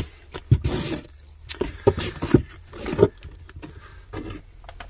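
A wooden stick stirring thick, wet cement paste in a mixing bucket: several short wet slaps and scrapes at irregular intervals. The paste is plain cement and water worked to a custard-like consistency.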